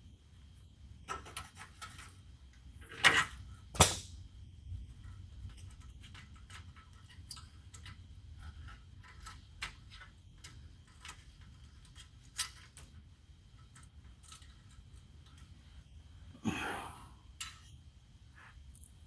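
Clicks, light clatter and knocks of hand tools and small metal parts being handled while the bandsaw's switch wiring is opened up. Two sharp knocks come about three and four seconds in, and another about three seconds before the end.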